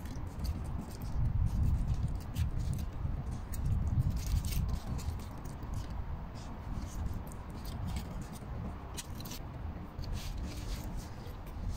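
Aluminium foil wrapper crinkling now and then as it is handled, in short crackles that cluster around the middle and again near the end, over a low steady rumble.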